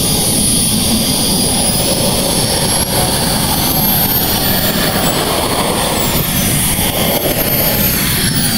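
Small gas turbine of a large-scale model T-33 jet running while it taxis on the ground: a steady jet rush with a high whine that climbs in pitch and then falls away over the last few seconds as the throttle changes.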